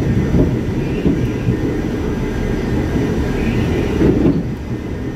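R44 subway car running at speed, heard from inside the car: a steady rumble of wheels on the rails, with a few knocks from rail joints and a faint steady high whine.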